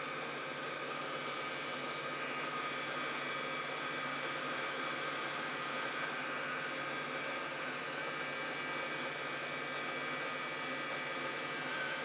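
Steady hiss of air blown by a motor-driven fan on the soldering bench, with a few faint steady whining tones over it.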